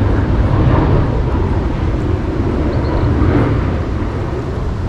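Wind buffeting the microphone: a steady low rumble that rises and falls a little.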